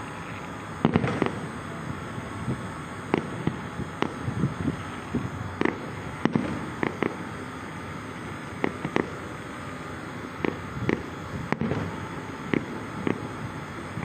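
Irregular sharp pops and bangs, a few a second at times, over a steady rushing background.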